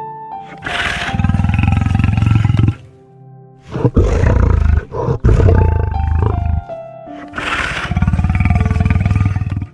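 Three long, loud, low, rasping animal calls, roar-like, over background music.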